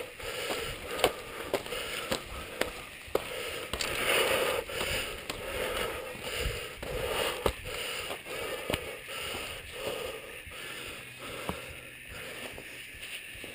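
Mountain bike rolling slowly over a loose dirt trail: tyres crunching on dirt and gravel, with many sharp clicks and rattles from the bike.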